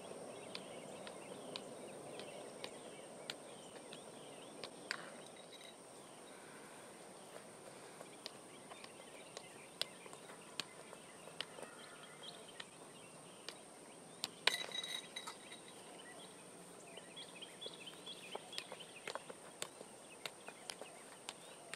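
Soccer balls being kicked one after another in a shooting drill: short sharp thuds of boot on ball, with one louder strike about two-thirds of the way through. Birds chirp faintly near the end.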